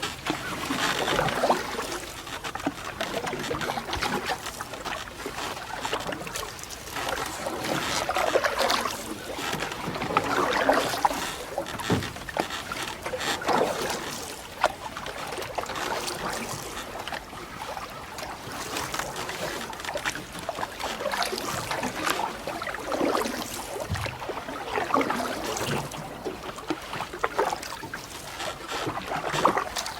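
Canoe moving through water: water swishing and trickling against the hull, swelling every two to three seconds.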